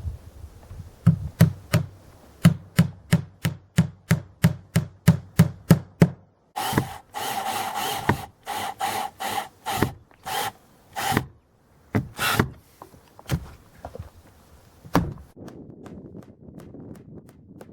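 Woodworking by hand: about a dozen sharp knocks on wood, roughly three a second, then a run of quick back-and-forth sawing strokes on wood, the first one long and the rest short, followed by a few scattered taps.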